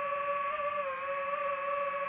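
DJI FPV drone's motors and propellers whining at a steady pitch in flight, the pitch dipping briefly about a second in as the throttle eases.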